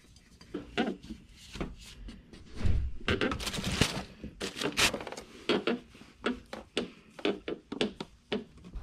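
Irregular light clinks, taps and knocks of hands handling tools and parts under a car beside the oil filter, with a short stretch of rubbing a few seconds in.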